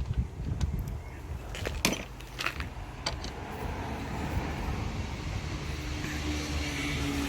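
A few sharp metallic clicks from a spanner working on a car's wheel bolts, over a low uneven rumble.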